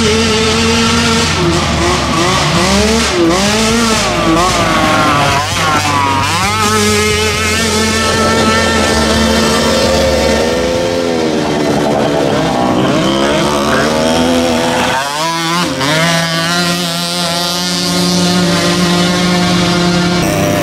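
Several 50cc mini ATV engines racing at once, their pitch repeatedly rising and falling as the riders rev up and ease off.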